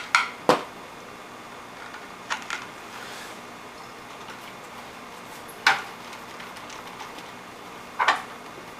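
Scattered sharp plastic clicks and knocks as dishwasher parts are handled and fitted back in place: a pair near the start, another pair about two seconds in, a single knock past the middle, and a double click near the end.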